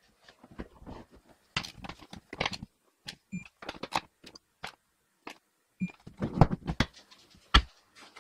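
Irregular clicks, knocks and rustles of hands and a hand tool working at a car seat's floor rail, with heavier knocks after about six seconds. Two short high beeps sound about two and a half seconds apart.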